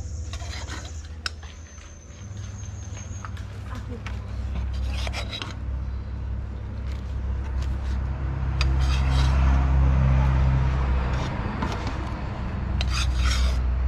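Metal ladle clinking and scraping against a foil tray as melted garlic butter is spooned over grilled lobster tails, a few sharp clinks in all. Under it runs a steady low rumble that swells for a few seconds past the middle, with a thin high whine that stops about three seconds in.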